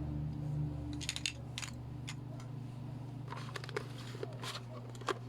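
Scattered light clicks and rustles of plastic toy pieces being handled, over a steady low hum.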